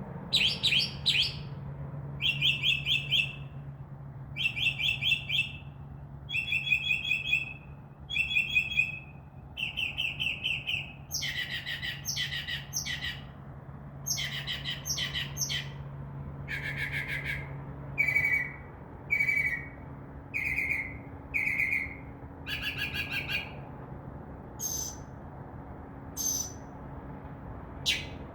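Northern mockingbird singing: a string of high, varied phrases about a second long, each type repeated a few times before the bird switches to the next. Near the end it changes to short, thin, high notes.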